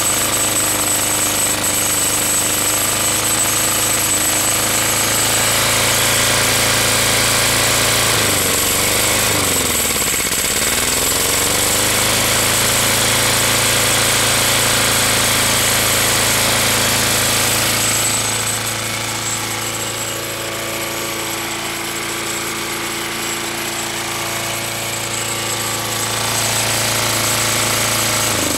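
Single-cylinder lawn mower engine running on gasoline vapor from a bubbler, drawn through a hose into the air intake instead of through a carburetor. About nine seconds in its speed sags sharply, as if about to stall, then picks back up. From about eighteen seconds it runs a little quieter for several seconds, and right at the end its speed falls away as it dies.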